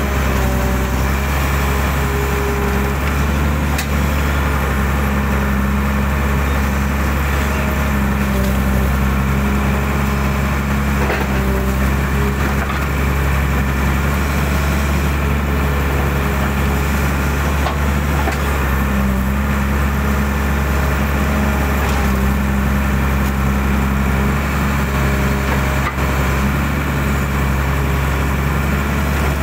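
Hydraulic excavator's diesel engine running steadily under work, with a few faint knocks.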